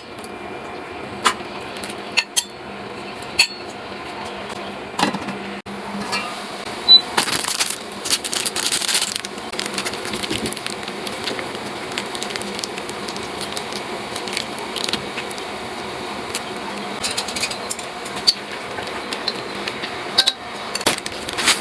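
Cooking sounds: utensils and dishes clinking, with scattered sharp clicks over a steady hiss.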